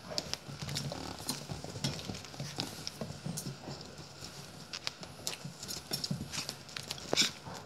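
Puppies playing at close range: their paws and claws scrabble and pat on a blanket and dog bed in an irregular run of clicks and taps. The loudest click comes near the end.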